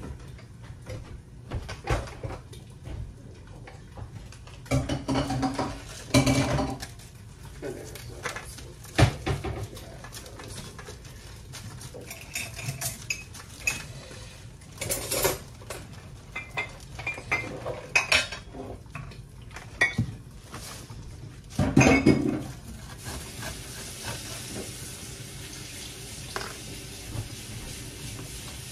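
Dishes and cutlery clattering and clinking in scattered knocks. About two-thirds of the way through, a steady hiss sets in and carries on.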